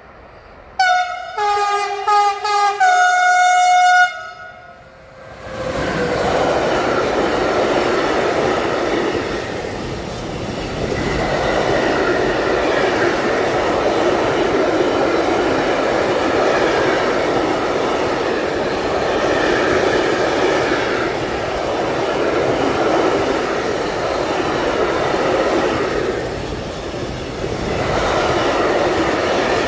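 A locomotive horn sounds a few loud blasts of changing pitch about a second in. Then a long container freight train passes close by, its wagons' wheels rumbling and clattering steadily on the rails.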